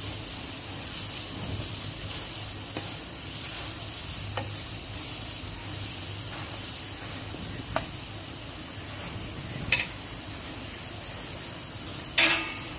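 Sliced onions sizzling in oil in a nonstick kadai while a wooden spatula stirs them, with a few knocks of the spatula on the pan and a louder knock near the end.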